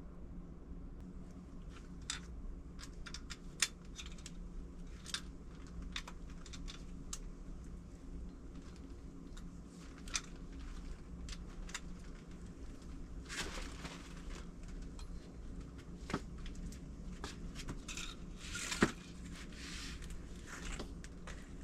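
Irregular light metallic clicks, taps and short scrapes of hand tools and nuts being handled on a motorcycle engine's cylinder head, over a steady low hum.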